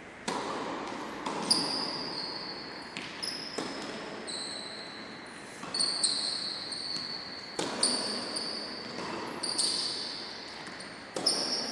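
Tennis rally on an indoor court: a serve, then racket strikes and ball bounces every second or two, each one echoing around a large sports hall.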